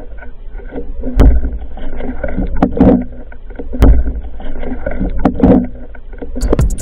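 Muffled underwater noise picked up by a camera in its housing: low water rushing that swells and fades several times, with a few sharp clicks.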